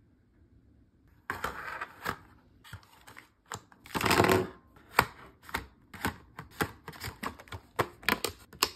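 Plastic Stabilo Boss Original highlighters clacking against one another and being set into their clear plastic wallet case, with the plastic case rustling. After about a second of quiet comes an irregular run of sharp clicks and taps, with the loudest rustle about four seconds in.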